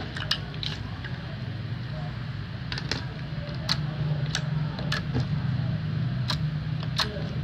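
Slime being squeezed and worked by hand, giving sharp sticky clicks and pops at irregular intervals, about ten in all, over a steady low hum.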